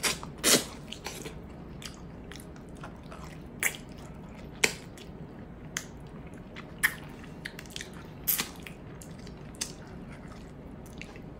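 Close-up mouth sounds of a person biting and chewing braised pork hock eaten by hand: irregular wet smacks and clicks, the loudest about half a second in.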